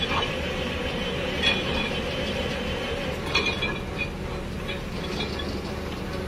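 Truck-mounted water well drilling rig running steadily under test, with a few sharp clinks about a second and a half in and again around three to four seconds in.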